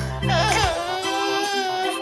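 A baby's long cry, wavering at first and then held on one pitch for about a second, over background keyboard music.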